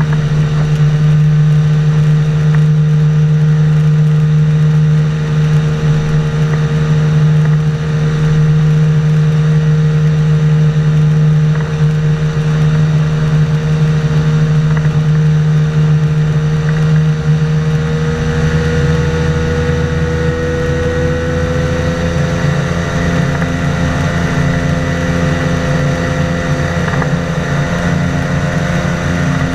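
Engine and propeller of a flying inflatable boat running steadily at high power, its pitch rising a little about two-thirds of the way through.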